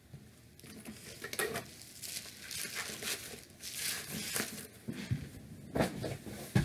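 Packaging being handled and rummaged through: irregular rustling and crinkling with light clinks, and a couple of sharper knocks near the end.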